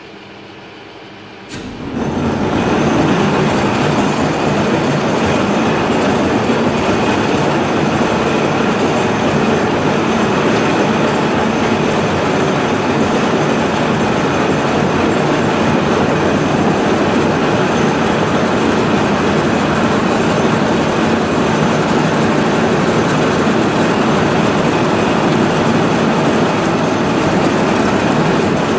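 A large lathe starting up about a second and a half in, then running loud and steady at 68 rpm while a deep-hole boring tool cuts into a bar of Inconel 625 under flowing coolant.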